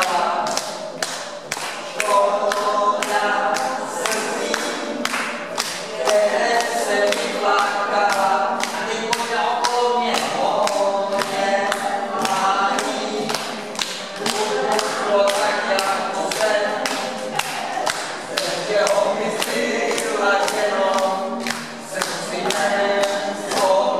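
Dance song with several voices singing over a steady beat of about two to three strokes a second, played over a loudspeaker, with some people clapping along.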